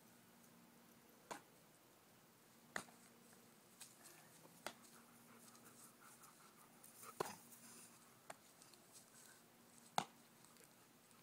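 Baseball smacking into leather gloves during a game of catch: a handful of short, sharp pops a second or more apart, the loudest near the middle and near the end, in an otherwise quiet yard.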